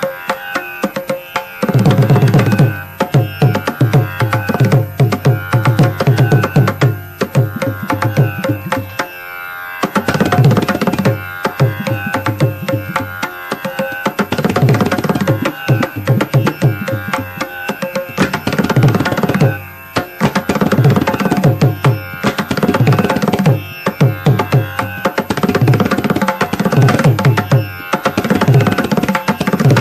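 Mridangam solo in a Carnatic thani avartanam: rapid, dense strokes on the treble head mixed with deep bass strokes, played in phrases with short breaks about a third and two-thirds of the way through.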